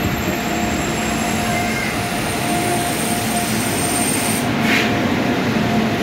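WAP-7 electric locomotive hauling an LHB express train, running past close by with a steady hum and whine over the dense rumble of wheels and rain. A brief hiss rises about four and a half seconds in.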